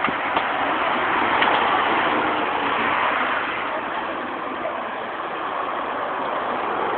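Steady rush of street traffic, swelling a little and then easing, heard through a low-quality camcorder microphone.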